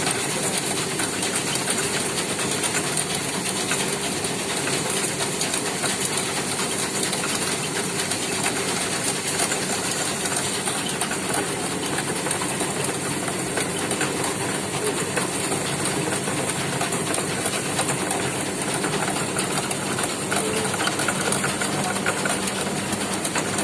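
Muri (puffed rice) and chana roasting machine running: a steady mechanical drone with a dense hiss over it, unchanging throughout.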